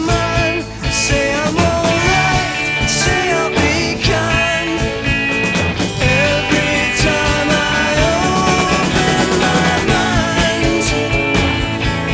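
Rock song playing as background music, with a steady beat.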